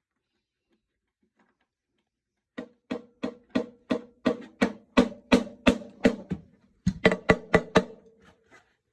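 Marching snare drum with a freshly replaced head, struck with a stick in an even series of single strokes about three a second, each leaving a ringing tone. After a short pause a quicker run follows. The drum is being test-played while its tension is still being tuned.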